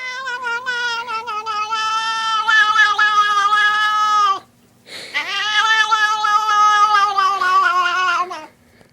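A domestic cat yowling in two long, drawn-out calls of about four seconds each, with a short pause between them. Each call holds a steady pitch and sags slightly at its end.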